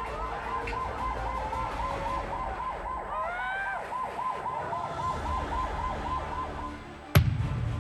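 A siren warbling fast in a yelp pattern, about four sweeps a second, with a few slower rising whoops partway through. It cuts off near the end and a sharp bang follows.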